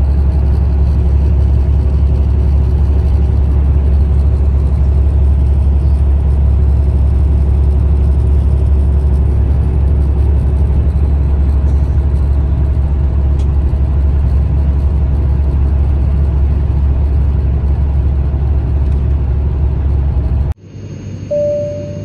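Steady road and tyre noise of a car driving at motorway speed, dominated by a deep rumble. It cuts off suddenly near the end, and a few held musical notes begin.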